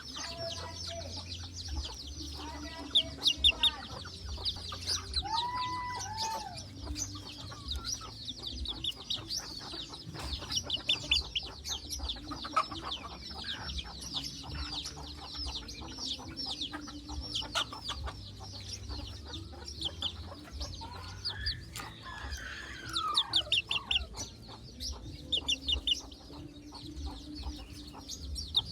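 A white decoy junglefowl rooster clucking and calling in short pitched calls, over a constant dense high chirping and a low steady hum.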